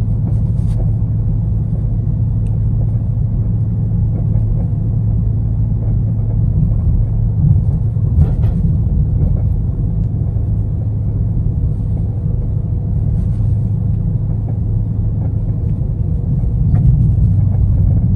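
Steady low drone of a Dodge Charger Scat Pack on the move, engine and road noise together. A few faint knocks come through it.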